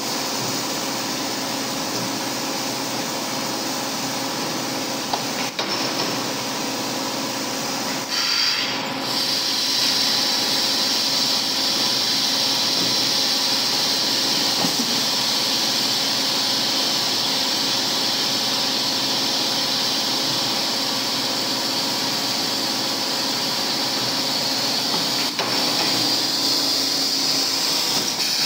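Automatic double-head, two-stage blow moulding machine running: a steady mechanical hum under a continuous hiss that grows louder about eight seconds in, with a few faint sharp clicks.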